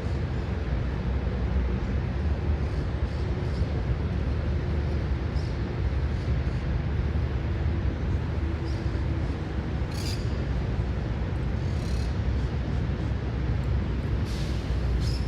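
Park ambience: a steady low rumble throughout, with short high bird chirps, faint at first and clearer about ten seconds in, again two seconds later and near the end.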